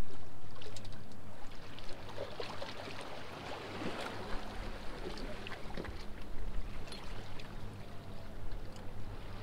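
Water washing and lapping among the jetty rocks, with small scattered clicks from handling the bait and tackle. It starts louder and fades over the first second and a half.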